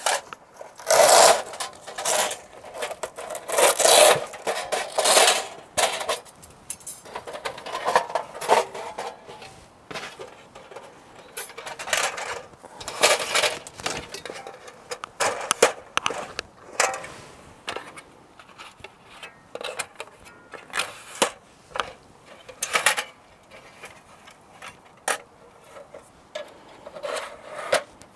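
Pomoly T1 folding wood stove being unfolded and assembled by hand: thin metal panels clinking, scraping and rattling against each other in irregular bursts.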